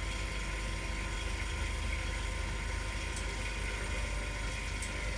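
Steady low machine hum with a faint, thin, constant tone above it and no changes or knocks.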